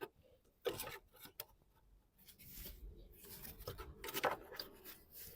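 Hand-handling noises as a new ignition coil pack is fitted: plastic rubbing and scraping in short bursts, with a few sharp clicks, the loudest burst about four seconds in.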